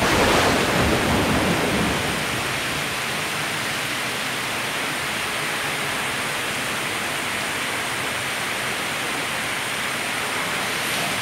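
Steady rain falling, an even rushing hiss. Over the first two seconds a louder, deeper rush swells up and fades back into it.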